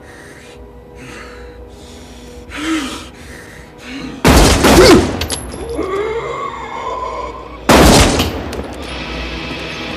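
Film sound: a few ragged gasping breaths, then a rapid volley of pistol shots about four seconds in and another loud blast near eight seconds, over a tense film score.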